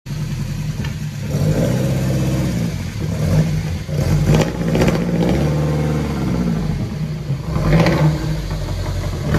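Lancia Fulvia Zagato's 1.6-litre narrow-angle V4 running as the car is driven slowly on a transporter ramp, the revs rising and falling several times. A few short knocks come about four and a half seconds in and near the end.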